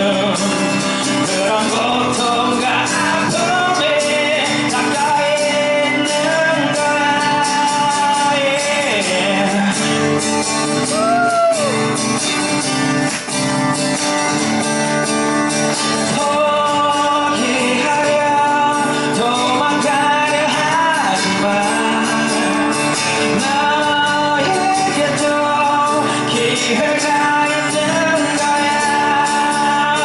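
Two men singing a song live into microphones over a strummed steel-string acoustic guitar.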